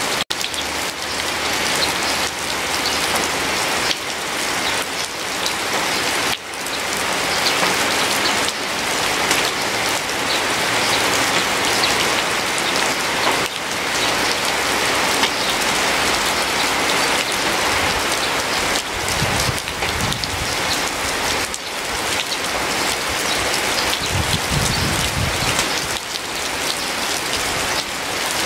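Steady rain falling: a dense, even hiss of drops, with two short low rumbles in the second half.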